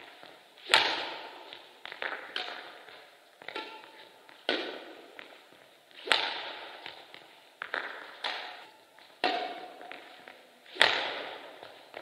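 Badminton racket striking the shuttlecock in a series of backhand overhead shots, about seven sharp hits roughly one and a half seconds apart, each echoing in the large sports hall, with lighter taps and footsteps between them.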